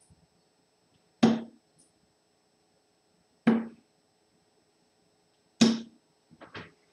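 Three steel-tip darts striking a dartboard, one every two seconds or so, each a sharp thud with a brief ring, followed by a few light clicks near the end.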